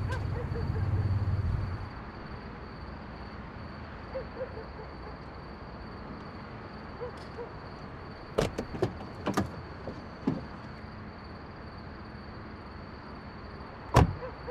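A convertible car's engine running low and cutting off about two seconds in, followed by a few light clicks, then a car door shutting with a loud thump near the end.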